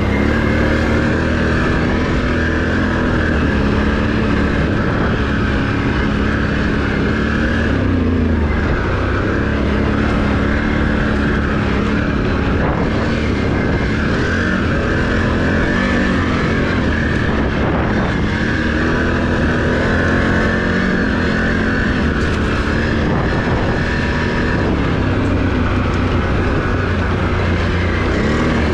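Can-Am Renegade ATV engine running steadily while riding, its pitch rising and falling slightly with the throttle, over a continuous rushing noise of wind and travel.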